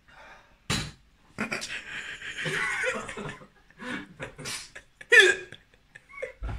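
A person's hiccup-like gulp and heavy breathing as a harsh shot goes down, mixed with laughter: short sharp bursts, one about a second in and more near the end.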